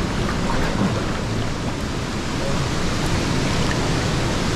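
Waterfall rushing steadily, its noise filling a narrow rock gorge.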